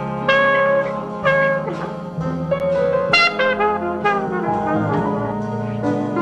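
Live traditional jazz band playing: trumpet and trombone together with clarinet, over piano, string bass and drums.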